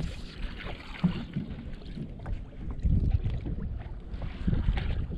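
Wind buffeting the microphone in gusts, strongest about three seconds in, over small waves lapping against a fishing boat's hull.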